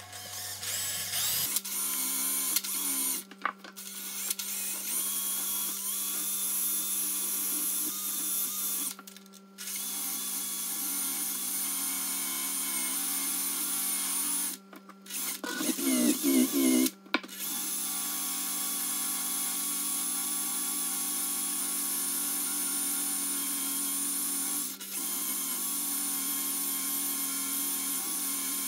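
Cordless drill spinning a cloth buffing wheel, a steady motor whine that stops briefly a few times, while polishing compound and then a screwdriver's blade and wooden handle are held against the wheel. About halfway there is a louder stretch of rubbing.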